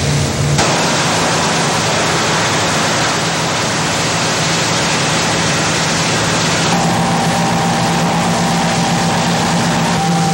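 Fireground noise: the steady rushing of heavy hose streams falling as spray, over the drone of fire apparatus engines and pumps, with a steady hum and a thin whine. The sound changes abruptly about half a second in and again near seven seconds.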